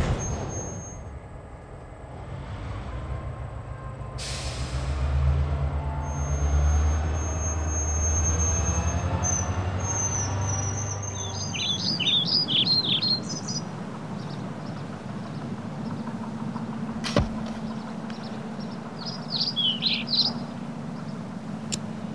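A train rumbling past, swelling and then fading over about twelve seconds. Then come short bursts of bird chirping over a low steady hum, with a sharp click about seventeen seconds in.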